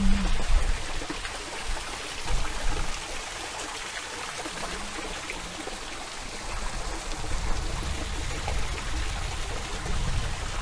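Steady rushing noise like running water, with a low rumble underneath.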